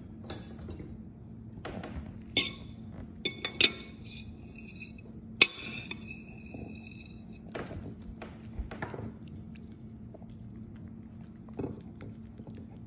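A ceramic dinner plate clinking: four sharp clinks between about two and five and a half seconds in, each ringing briefly, the last the loudest.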